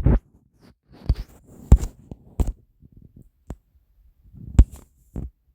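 About seven short, irregularly spaced thumps and clicks, soft and low, with a few sharper ones near the middle and end.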